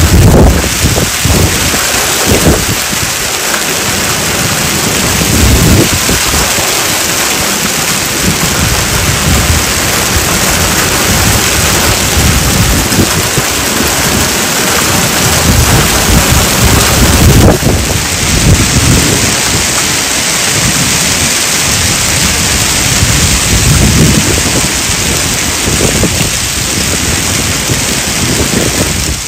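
Hail and heavy rain pelting wet concrete pavement: a loud, dense, steady hiss of impacts, with low rumbles swelling and fading beneath it.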